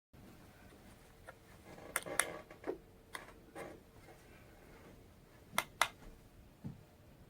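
Scattered sharp clicks and light knocks of handling, with two louder pairs of clicks, over a faint steady hum.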